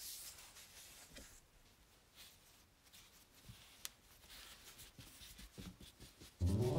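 Near silence with faint rustling and a soft tap as plush toys are moved on a foam mat. Light piano music starts near the end.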